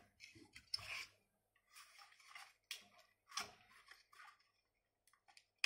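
Faint scattered clicks and scrapes of the hard plastic parts of an Acid Rain World Stronghold mech toy being moved and pressed into place at stiff joints, with one sharper click near the end.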